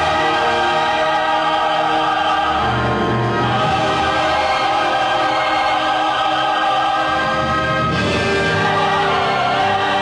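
Orchestral theme music with a choir singing long held notes, the harmony shifting to new chords a few seconds in and again near the end.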